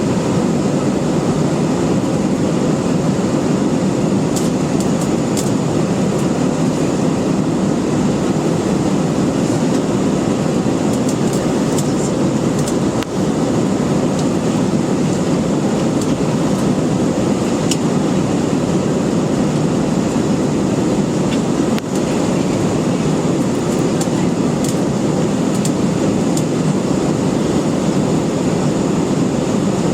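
Steady cabin noise of a jet airliner in its climb after takeoff: a constant low rush of engines and airflow, with a few faint ticks and rattles from the cabin and two brief dips about 13 and 22 seconds in.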